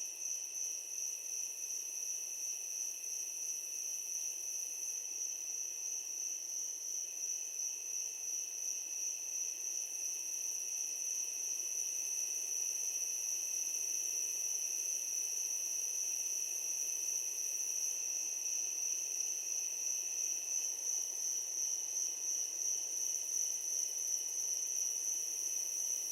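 Chorus of crickets chirping steadily: one loud, high trill with a fast pulse over several fainter, lower trills.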